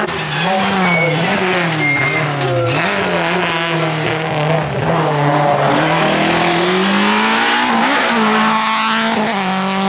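Hill-climb race car's engine revving through a hairpin: the revs dip and recover as it brakes and downshifts, then climb steadily as it accelerates out, with a sharp drop at a gear change about eight seconds in. Two short tyre squeaks come about one and two seconds in.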